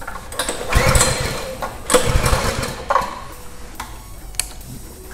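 Coleman B200R mini bike's small single-cylinder four-stroke engine being started: three short, uneven bursts of engine noise in the first few seconds, the first the longest, each dying away before it catches and runs.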